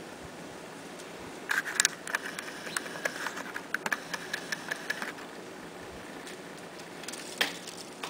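Downy woodpecker pecking at a suet cake in a wire-cage feeder: a quick, irregular run of sharp taps with a slight metallic ring for about three and a half seconds, then one more tap near the end.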